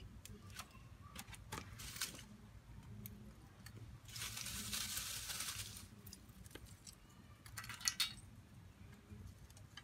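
Lumps of wood charcoal and dry kindling sticks clicking and clinking as they are handled and laid in a metal brazier. A rustle of a plastic bag lasts about two seconds from around four seconds in, and a quick cluster of clinks comes near the end as more charcoal is picked up.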